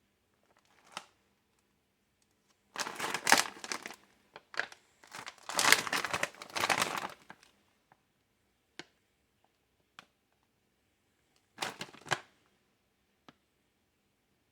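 Plastic packaging of a frozen microwaveable pasta side crinkling as it is handled, in three bursts, with a few light clicks in between.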